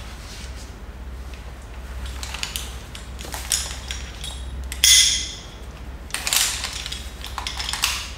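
Metal rope-access hardware clinking and rattling, with rope rustling, as carabiners and devices are handled on the harness. The loudest is a sharp metallic clank about five seconds in, with more clinks after it.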